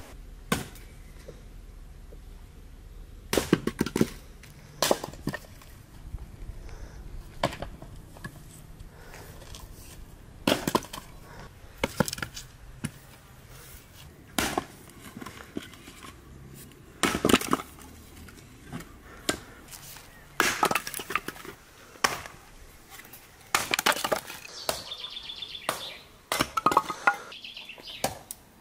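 Scattered knocks and clinks of cooking work: utensils, dishes and pans being handled, in irregular single hits and short clusters of sharp impacts.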